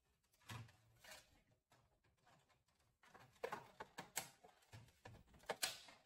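Faint clicks and rustles of plastic instrument-cluster parts being handled and fitted together, a few soft ones at first and a run of sharper clicks in the second half.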